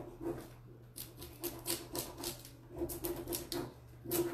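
Fingertips rubbing an Iron Orchid Designs décor transfer through its plastic backing sheet, burnishing it onto paper: quick rubbing strokes, several a second, in two runs about a second in and again near three seconds.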